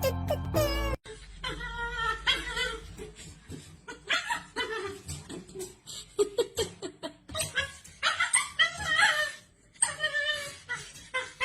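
A dog whining and yowling in a run of short, wavering calls with brief pauses between them.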